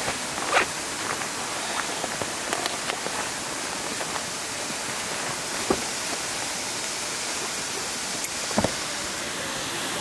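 Steady rushing of a nearby waterfall, with a few short knocks and rustles as a backpack is handled and a camera is taken out of it.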